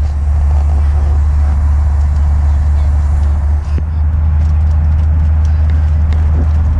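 Loud, steady low rumble of a vehicle in motion, with a few faint clicks.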